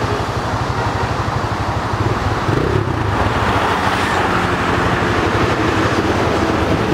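Steady motor-vehicle and road traffic noise, with engines running and a continuous low rumble.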